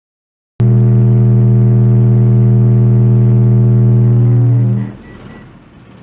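Subwoofer driven by a Lightning Lab AMF1500.DS2 class D mono amp playing a low bass test tone during an output power test. The tone is loud and steady with a buzzy stack of overtones, and it starts abruptly out of dead silence about half a second in. It stops near the end, leaving a faint hiss.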